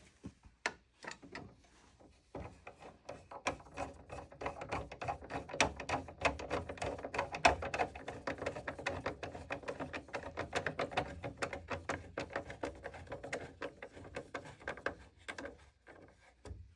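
Quick, dense clicking and rattling of a wire connector and cables being worked into place on a treadmill's motor controller board, starting about two seconds in and thinning out near the end.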